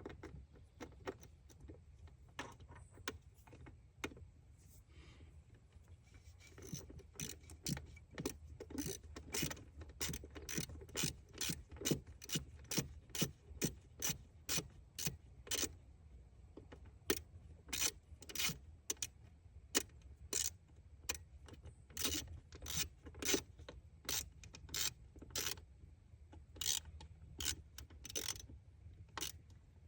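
Hand ratchet clicking in repeated short strokes, about two clicks a second, as the distributor cap's fasteners are tightened.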